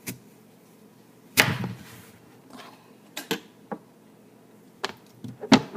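Kitchen items being handled and set down on a counter: a series of sharp knocks and clacks, the loudest about a second and a half in and another near the end.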